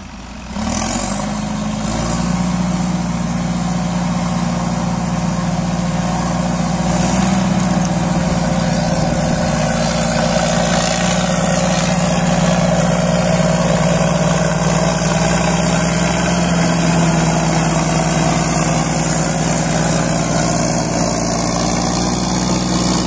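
Caterpillar 518 wheel skidder's diesel engine running steadily, with a brief dip in sound right at the start and slightly louder from about seven seconds in.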